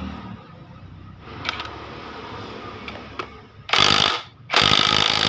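Electric impact wrench hammering at a nut on a motorcycle engine's gear train during teardown: a short burst near the end, then a longer one. Before that come light clicks of tools and parts being handled.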